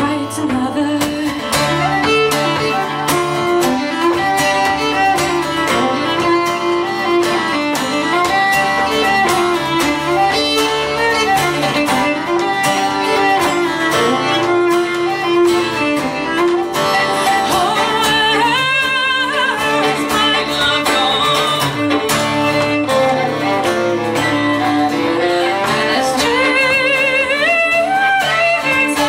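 Live acoustic folk music: a fiddle playing with vibrato over acoustic guitar accompaniment.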